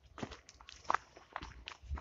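Footsteps on a gravel path strewn with fallen leaves: several steps at a walking pace, the loudest about a second in.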